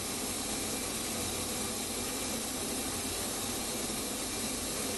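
Steady rushing hiss of roasted coffee beans pouring down a steel chute into a plastic crate.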